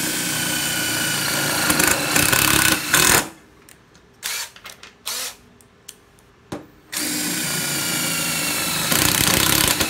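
Makita 14.4 V cordless drill running free with a steady motor whine in two runs of about three seconds each. Between them is a pause with a few clicks and two short trigger blips.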